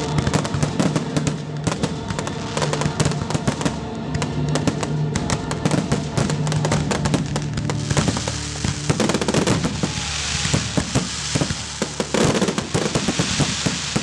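Fireworks display: aerial shells bursting in quick succession with crackling, over music playing. From about eight seconds in, a dense hissing crackle comes to the fore.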